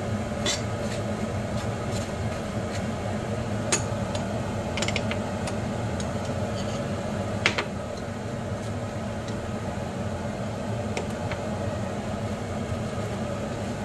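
Table knife scraping butter onto toast and clicking against the bowl and plate, a few short sharp scrapes and taps over a steady mechanical hum.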